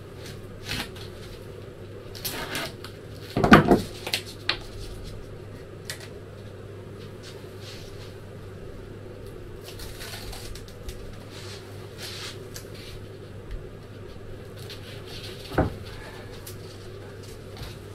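Bench work as small offcuts of polyethylene foam are trimmed with a knife and handled on a wooden workbench: scattered light taps and scrapes, with a louder knock about three and a half seconds in and another near the end. A steady low hum runs beneath.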